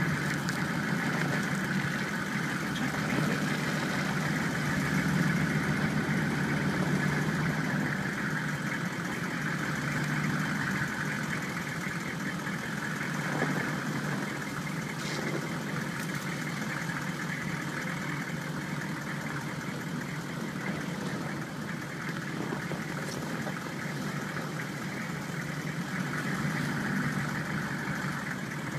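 A vehicle engine running steadily at low speed, a continuous low hum with a band of hiss above it and no sudden changes.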